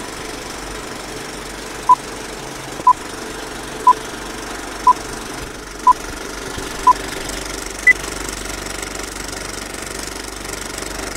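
Vintage film-leader countdown sound effect: a steady film-projector clatter with a short beep once a second, six beeps at one pitch followed by a single higher beep.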